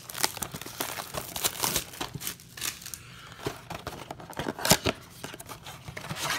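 Packaging being torn open by hand: the plastic wrap on a cardboard trading-card blaster box crinkles and tears, and the box's cardboard flap is pried open. It is a run of crackles and rustles with a sharper snap about four and a half seconds in.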